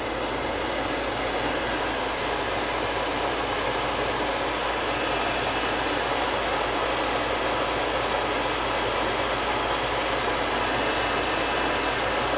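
Chicken livers sizzling in hot fat and flour in a pot on the stove: a steady, even hiss.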